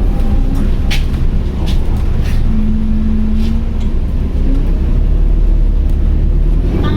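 Interior of an ADL Enviro400H City series-hybrid double-decker bus on the move: a steady, loud low drone from the drivetrain, with a brief steady whine about two and a half seconds in lasting about a second, and scattered light rattles.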